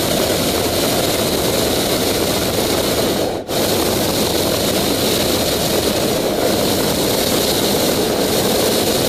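Hot air balloon's propane burner firing in one long blast, a loud, steady roar that drops out for an instant about three and a half seconds in.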